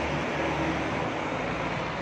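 Road traffic noise: a passing vehicle's engine hum that fades about a second in, over a steady hiss.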